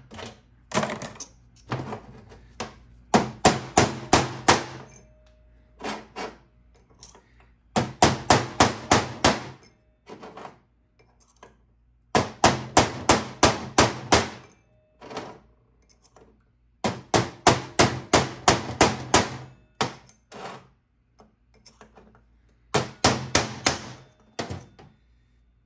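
Hammer striking a punch set against a worn sun gear bushing from a 48RE automatic transmission, driving the bushing out: sharp metallic blows in five quick bursts of about six to ten strikes each, roughly four or five strikes a second, with pauses of a few seconds between bursts.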